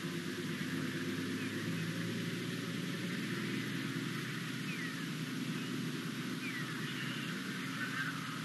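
Steady outdoor hiss over a low hum, with a few short, falling bird chirps scattered through.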